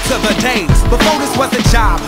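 Pop-rap song: a vocal line over a hip hop beat with a deep bass thump.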